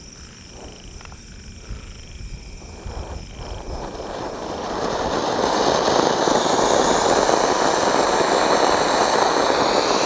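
Sunshine king-size anar, a flower-pot fountain firework: faint fuse crackling at first, then about four seconds in it catches and spouts with a rushing hiss that swells over about two seconds and then holds steady.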